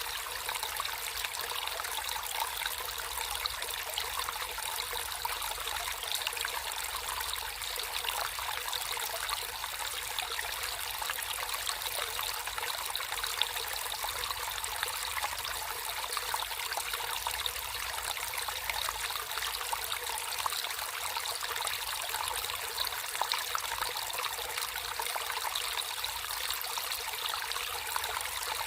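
Water flowing and trickling steadily, as in a small stream, with a continuous splashy babble.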